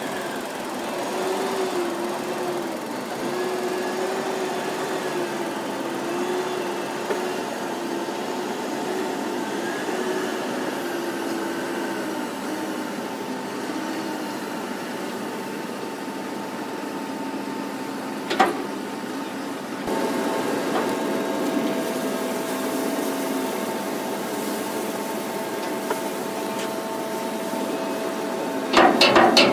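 Telehandler engine running, its pitch wavering up and down, with one sharp click about two-thirds through. The sound then changes to a steadier machine hum, and a quick burst of sharp knocks comes at the very end.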